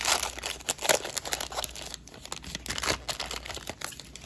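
Foil wrapper of a Panini Prizm basketball card pack being torn open and crinkled by hand, in irregular bursts of crackling, loudest in the first second and again near three seconds in, then fading.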